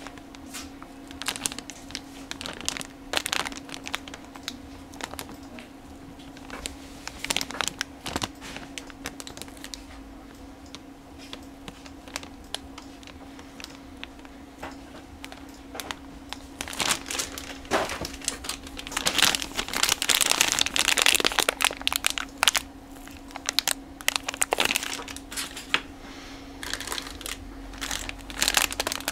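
Clear plastic bags around plastic model-kit sprues being handled, giving irregular crinkling and crackling. The crinkling is busiest and loudest about two-thirds of the way through. A faint steady hum sits underneath.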